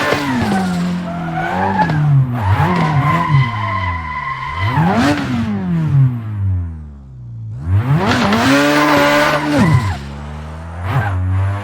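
Nissan Silvia S15 drift car, built to about 700 wheel horsepower, drifting with its engine revving up and down in quick swells and tyres squealing. The sound falls away about seven seconds in, then comes back loud.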